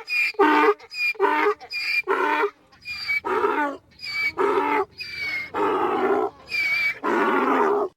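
Donkey braying: a long run of hee-haws, short high-pitched in-breaths alternating with longer, lower, harsher out-breaths at about one pair a second, stopping abruptly near the end.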